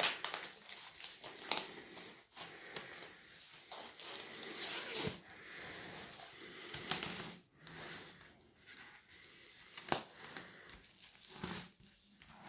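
Clear plastic wrapping crinkling and rustling as an LP record sleeve is handled and drawn out of it, with a few sharp clicks along the way.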